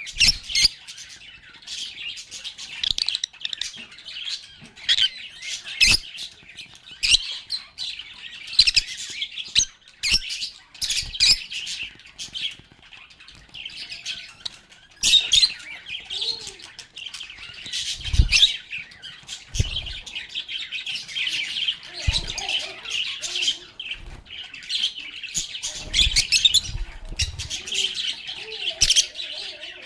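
A group of pet lovebirds (Agapornis) chattering and chirping, with continuous quick, high-pitched, overlapping calls. A few low thumps come in the second half.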